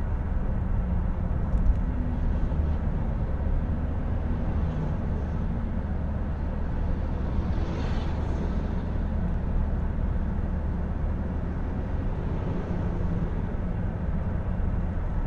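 Steady road and engine drone heard from inside a car cruising at highway speed, mostly low rumble from the tyres and engine. A brief swell of rushing noise comes about halfway through.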